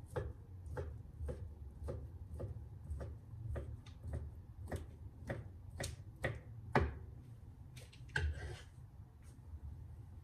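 Chef's knife slicing cooked chicken breast thinly on a wooden cutting board, the blade tapping the board in an even rhythm about twice a second, with one longer, noisier stroke about eight seconds in.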